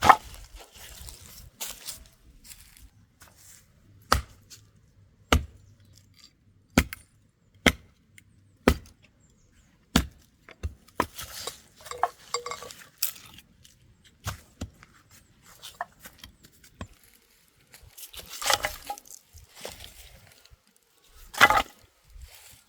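A run of sharp knocks about a second apart, like a tool striking wood, broken by handling and rustling noise in the middle and near the end.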